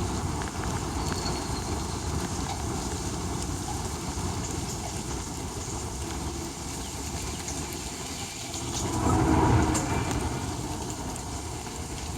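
Steady outdoor background noise with a low rumble and hiss, swelling louder for about a second around nine seconds in.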